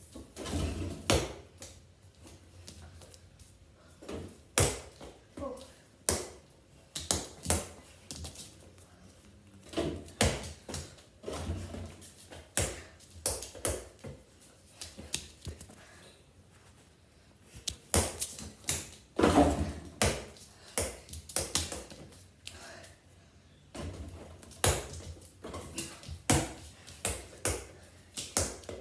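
Basketball dribbled and bounced by hand: irregular sharp thuds, some in quick runs, with short gaps between.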